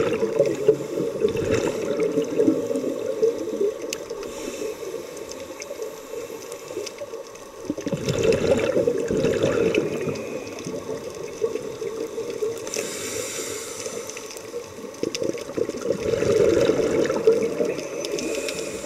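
Scuba diver breathing through a regulator underwater: exhaled bubbles gurgle in bursts near the start, about eight seconds in and about sixteen seconds in, with a hiss about thirteen seconds in.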